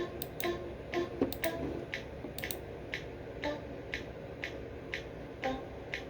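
Quiet background music with a ticking, clock-like beat of short clicks about twice a second over faint melody notes.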